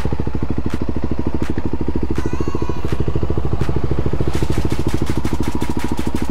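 Honda XR250 Tornado's air-cooled single-cylinder engine idling steadily, with an even, fast exhaust beat; this bike runs a 290 cc Athena big-bore kit and a 34 mm flat-slide carburettor. A run of rapid light ticks sounds over the last two seconds or so.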